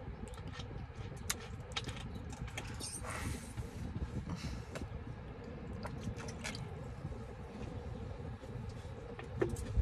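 Steady low rumble inside a car, with scattered small clicks and taps. About three seconds in, a short breathy hiss: air blown out through pursed lips to cool a mouth burning from hot chips and soda.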